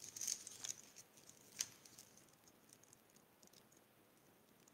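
Faint paper ticks and crackles as adhesive-backed paper letters are peeled from their backing sheet and pressed onto a scrapbook page: a few soft ticks in the first couple of seconds, then near silence.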